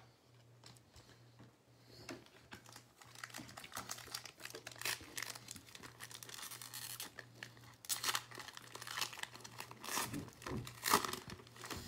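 Foil trading-card pack being torn open by hand, with irregular crinkling and tearing of the wrapper that grows louder about four seconds in.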